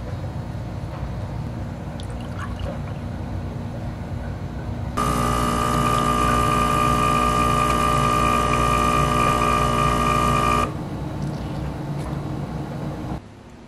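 Automatic espresso machine's pump buzzing loudly and steadily for about six seconds while espresso streams into a glass of milk, starting about five seconds in, then dropping back to a lower hum.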